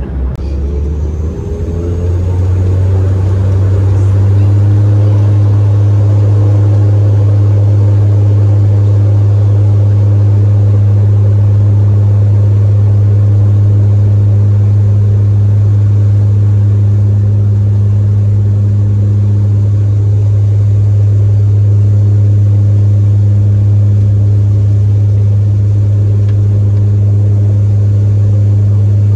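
Airliner engines heard from inside the cabin, rising in pitch over the first couple of seconds as they spool up, then settling into a loud, steady drone with a deep hum.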